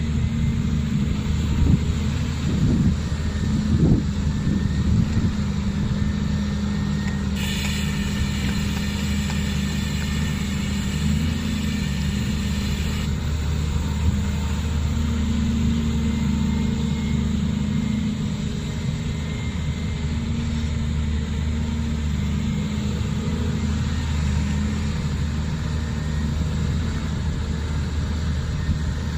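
Diesel engine of a Volvo crawler excavator running steadily at working revs, with thuds of a bucket of soil dropping into a dump truck's bed in the first few seconds. A higher whine cuts in about seven seconds in and stops sharply about six seconds later.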